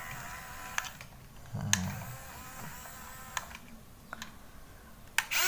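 Small electric gear motor of a toy RC excavator whirring as the cab turns, a thin whine broken by a few sharp plastic clicks.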